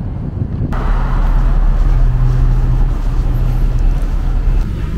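Wind buffeting the microphone, cut off abruptly less than a second in by the steady low rumble and hum of a motor vehicle's engine.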